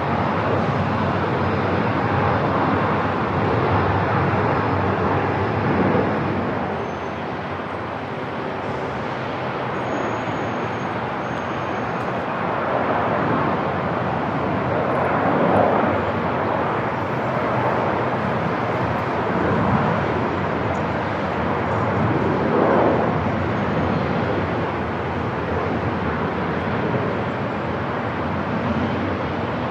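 Airport ambience: a steady wash of noise, with brief swells about halfway through and again about two-thirds of the way in.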